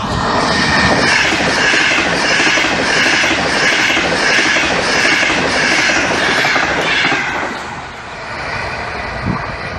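A high-speed electric express train passing close by at speed: a loud rush of wheels on rail that pulses roughly every half second as each car goes by. It dies away about seven seconds in as the train leaves.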